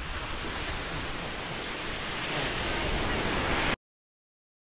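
Sea surf washing up the beach, a steady rushing that swells slightly, then cuts off abruptly about three-quarters of the way through.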